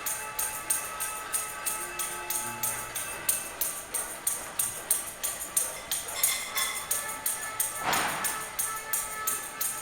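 Cacerolazo: pots and pans banged in a steady rhythm, about three to four metallic clangs a second, the pots ringing on between strikes. A short louder burst of noise stands out about eight seconds in.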